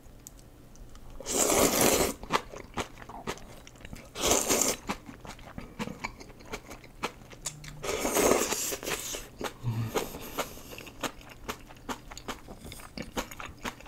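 Someone slurping curry ramyeon noodles: three loud pulls, a little over a second in, about four seconds in and about eight seconds in, with many short wet chewing clicks in between and after.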